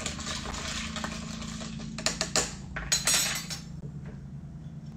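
A metal bar spoon stirring a drink in a copper mule mug, scraping and clinking against the inside, followed by a brief clatter about three seconds in as the spoon is set down on the stone counter.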